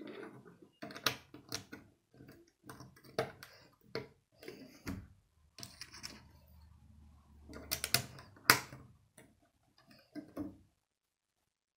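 Plastic Lego pieces clicking and tapping as they are handled, pressed onto the model car and set down on a wooden table: irregular small clicks, the sharpest about eight and a half seconds in.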